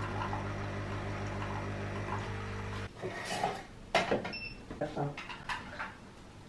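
Coffee machine running with a steady hum that cuts off suddenly about three seconds in, followed by light clinks and knocks of a cup, spoon and dishes.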